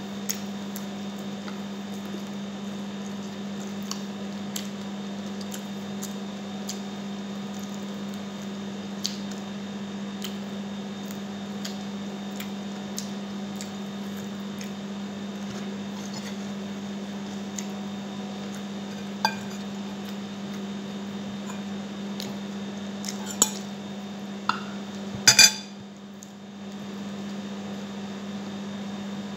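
Close-up eating sounds as sticky chicken wings are eaten by hand: chewing and finger-licking, with scattered small clicks of food and fingers against a ceramic plate. A few louder clinks on the plate come near the end. A steady low hum runs underneath.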